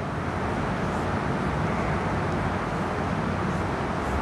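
Steady, even background noise with no clear strokes or tones, swelling slightly in the first second and then holding.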